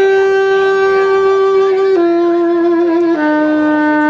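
Saxophone playing three long held notes, each lower than the last, the middle one wavering slightly.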